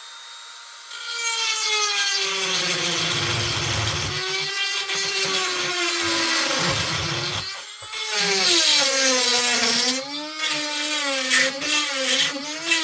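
Small electric rotary tool grinding out a mounting hole in a metal chainsaw felling dog. Its high motor whine sags and wavers in pitch as the bit bites into the metal. It picks up about a second in and drops off briefly about halfway before running on.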